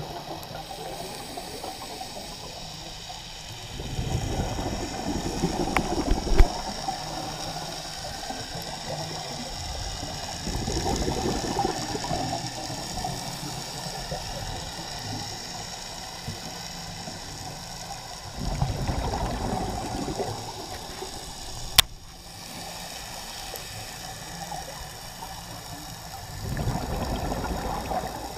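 Scuba diver's exhaled breath bubbling out of the regulator underwater, heard as a bubbling rush four times, about every seven to eight seconds, with a steady hiss between. Two sharp clicks stand out, one during the second burst and one near the middle.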